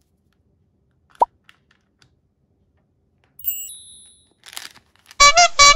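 Edited-in sound effects: a short rising pop about a second in, a bright high chime a couple of seconds later, then three quick, loud pitched toy-like notes near the end.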